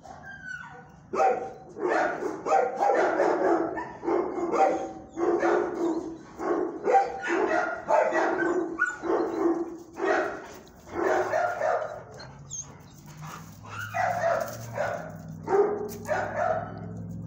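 Dog barking in a long string of short barks, about two a second, with a pause of a couple of seconds in the second half.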